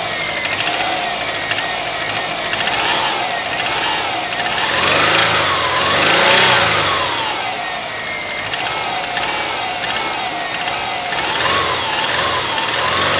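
Subaru Forester SG5's turbocharged flat-four engine, started cold, being revved in repeated throttle blips, with one big rise and fall about midway and smaller ones before and after. This is the engine knocking at about 120,000 km, judged a knocking engine not worth selling whole.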